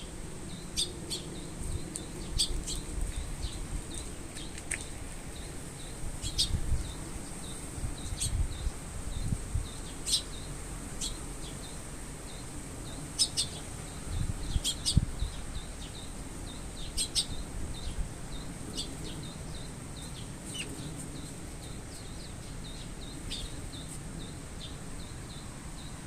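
Eurasian tree sparrow giving short, sharp single chirps at irregular intervals, about one every one to three seconds.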